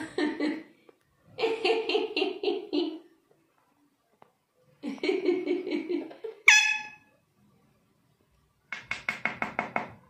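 Alexandrine parakeets making raspy, pulsed chattering calls in four short bouts, the last one faster. One short, sharp squawk about six and a half seconds in is the loudest sound.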